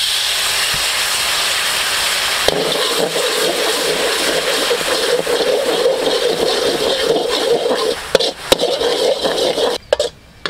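Brown sauce sizzling loudly as it hits a hot steel wok, then sizzling steadily while a metal spatula stirs and scrapes it around the pan, with a few sharp knocks near the end.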